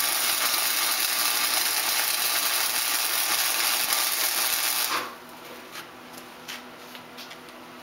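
Flux-core wire-feed (MIG) welder arc crackling steadily as a bead is laid, with the heat turned up one notch. The arc cuts off sharply about five seconds in, followed by a few faint ticks.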